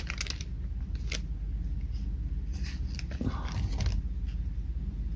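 Small plastic and metal mount parts and their packaging being handled: scattered light clicks with a few short rustles, over a steady low hum.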